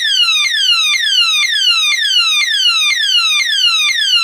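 Cheap motion-triggered door-hanging alarm sounding in its alarm mode: a loud electronic siren of quickly repeated falling sweeps, about two and a half a second, going on without a break.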